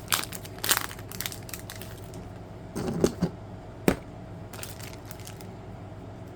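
Trading-card booster pack wrapper being torn open and crinkled by hand, in short crackly bursts. There are more crackles around three seconds in and a sharp snap near four seconds.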